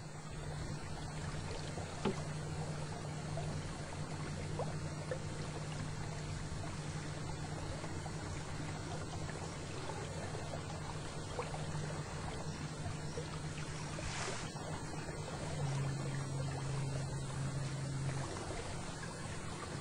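A canoe's electric motor hums steadily with a low tone while the canoe is under way. Near the end the hum drops slightly in pitch and gets stronger for about two seconds.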